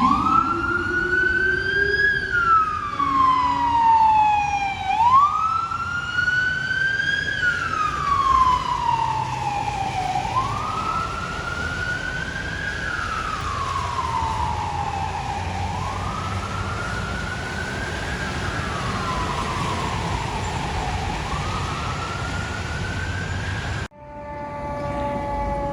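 Fire truck siren on wail, sweeping slowly up and down in pitch about every five seconds over traffic noise. Near the end it cuts abruptly to a lower, steady siren tone that slowly drops in pitch.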